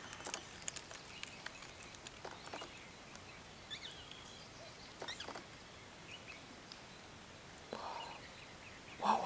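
Outdoor background with scattered faint bird chirps and calls, a few short clicks among them, and a couple of brief muffled sounds near the end.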